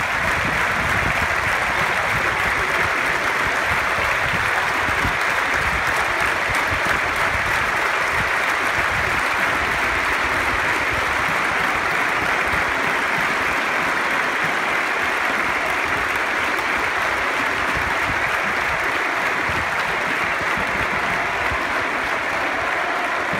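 A packed football stadium crowd clapping in a long, steady ovation, a dense even wash of applause from the whole stand.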